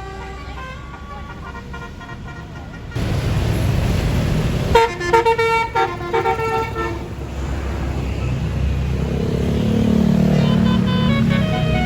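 A tour bus's basuri 'telolet' musical horn plays a quick tune of several notes about five seconds in, over the loud noise of the bus engine passing close. The engine hum swells afterwards. A tune of stepped notes plays at the start and comes back near the end.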